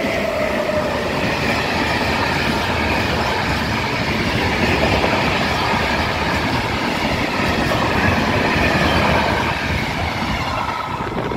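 Freight train of open-top wagons passing close by at speed: a loud, steady rolling rattle of steel wheels on the rails with a faint high whine above it. It eases off somewhat near the end.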